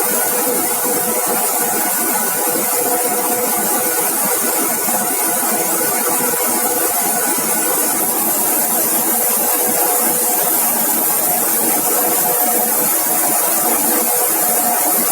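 Spray humidifier running: a steady hiss of spray with an even, steady hum under it.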